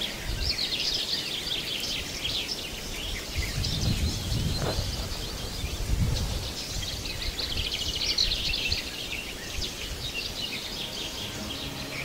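Several songbirds singing together in a forest morning chorus: overlapping chirps and quick rattling trills. Low rumbling noise swells and fades near the middle.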